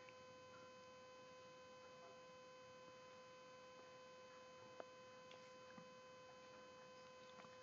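Near silence with a steady electrical hum, and a faint click about five seconds in.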